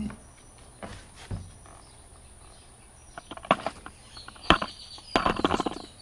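Handling noise from wiring and plastic parts at the open alternator end of a generator: scattered clicks and taps, with a quicker run of clicks about three seconds in and a burst of scraping and rustling about five seconds in.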